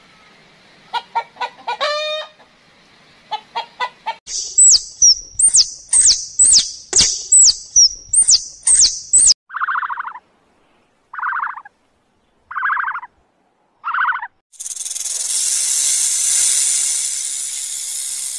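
A sequence of different animal calls: a few short calls, then a run of rapid high bird chirps, then four short calls about a second and a half apart. Near the end, a long steady hiss takes over.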